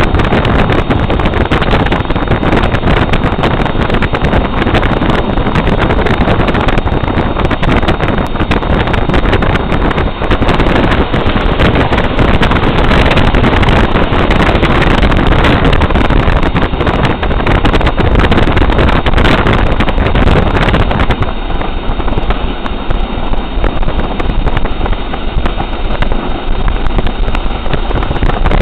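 Steady loud rushing and rumbling of a moving vehicle heard from on board, with wind buffeting the microphone; about three quarters of the way through it becomes a little quieter and thinner.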